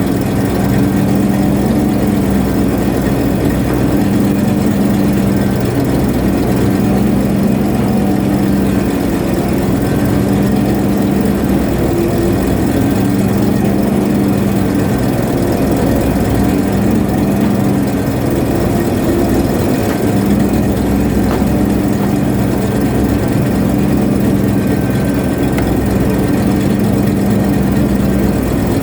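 Boat's engine running steadily, a constant low drone with a strong hum.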